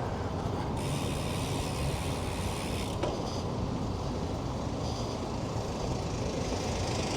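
Steady road and wind noise from riding a bicycle on city streets, with a hiss rising for about two seconds near the start.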